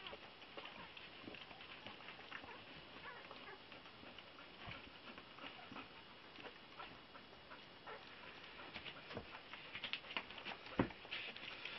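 Faint scattered clicks and soft rustling from newborn Bearded Collie puppies nursing and shuffling on the bedding beside their mother. The sounds grow busier near the end, with one sharper knock.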